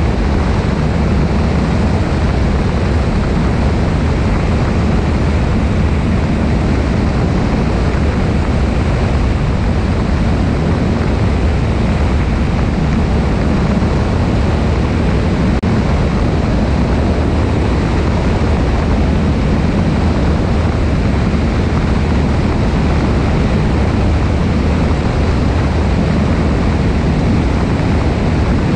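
Cessna 172 in steady flight heard from a wing-mounted camera: an unchanging drone of engine and propeller under a rush of wind noise.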